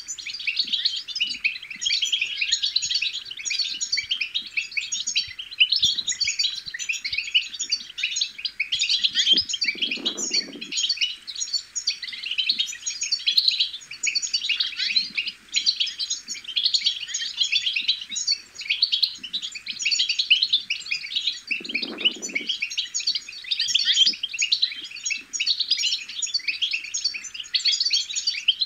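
European goldfinch twittering: a dense, unbroken run of quick chirps and trills. A brief low sound comes twice, once near the middle and once later.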